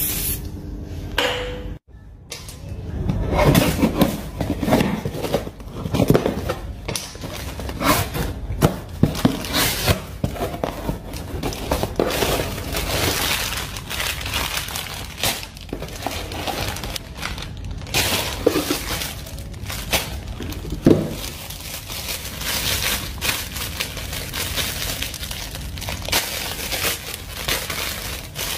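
A cardboard box being opened and plastic packaging handled by hand: a dense run of rustling, crinkling and tearing noises.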